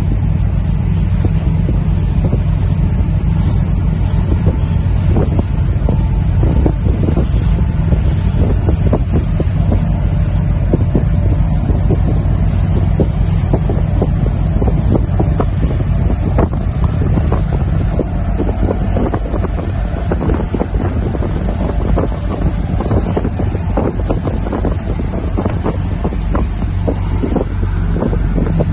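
Small boat's engine running steadily with a low rumble, and wind buffeting the microphone in irregular gusts.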